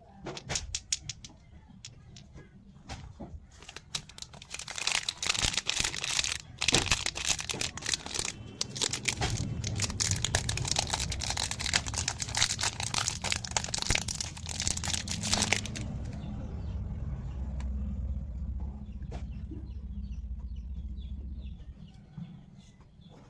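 Plastic candy packaging crinkling and crackling as it is handled and opened, in dense bursts of sharp clicks that are thickest in the middle and die away about two-thirds of the way through, with a low rumble of handling underneath.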